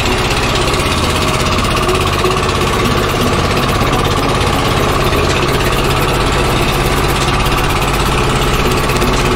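Engine of a motorised outrigger bangka running steadily with the boat under way, a loud, fast, even beat that holds the same pace throughout.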